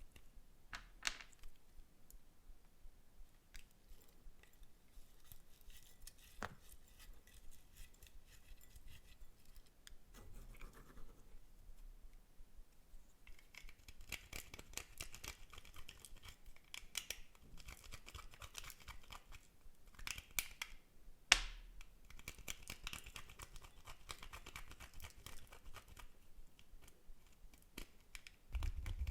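Clear slime being handled and mixed: many small sticky clicks and crackles, busier in the second half, with one sharper click about two-thirds of the way through.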